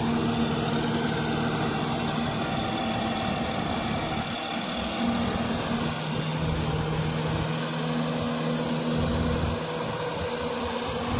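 Goose GS1028E tracked rice combine harvester running steadily, its diesel engine and machinery giving an even hum with a few held tones.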